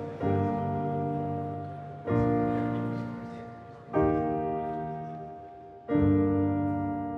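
Background music: slow piano chords, four in all, a new chord struck about every two seconds and left to ring and fade.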